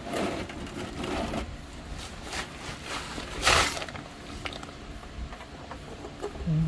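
Handling noises from working with parts and tools: scattered small knocks and clicks, with one short, loud rustle or scrape about three and a half seconds in.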